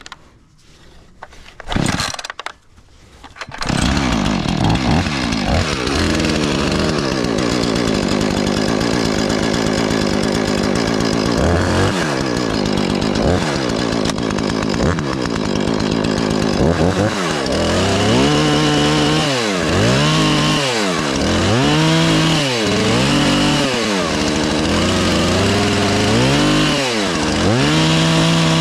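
Husqvarna 450 Rancher two-stroke chainsaw starting up about three and a half seconds in, then running at high revs and cutting wood. In the second half its pitch repeatedly drops and climbs again as the engine bogs under load in the cut and revs back up.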